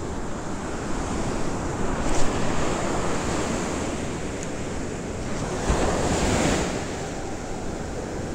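Ocean surf breaking and washing up a sandy beach, with wind buffeting the microphone. The wash swells louder about two seconds in and again around six seconds in.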